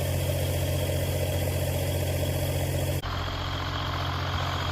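Boom lift's engine idling steadily. The sound changes abruptly about three seconds in, but the engine keeps running.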